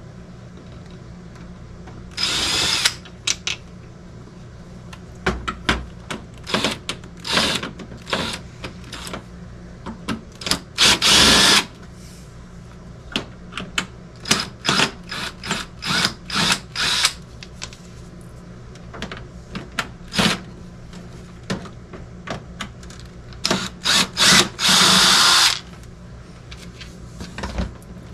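Ryobi cordless drill/driver backing screws out of a plastic appliance housing. It runs in many short trigger blips and three longer spins of about a second each.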